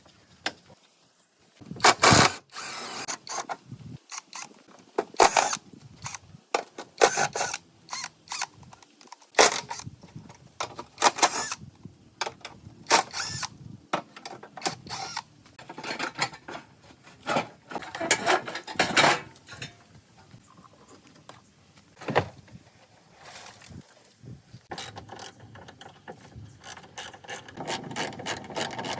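Workshop tools working on metal parts: irregular clanks, knocks and scrapes, with a quick run of evenly spaced clicks near the end.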